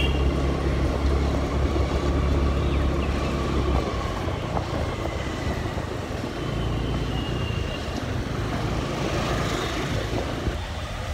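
Outdoor street ambience with road traffic. Wind rumbles on the microphone for the first four seconds or so, then a steady, even noise continues.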